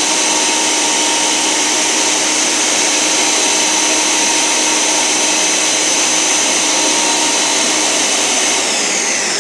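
Countertop blender running steadily at high speed, blending a vegetable shake. Near the end it is switched off and the motor winds down with a falling whine.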